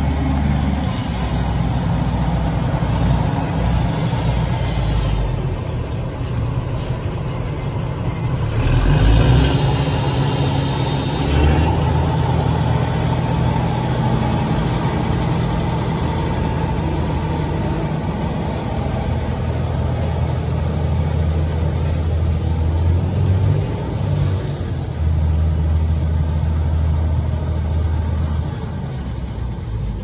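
Diesel engine of a Kartar Crop Cruiser combine harvester running as the machine drives slowly past, its engine note shifting a few times. A louder hiss rises for about three seconds roughly a third of the way through.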